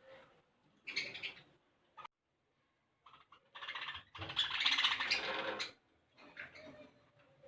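Budgerigars squawking and chattering in several bursts while squabbling over food, the longest and loudest burst in the middle.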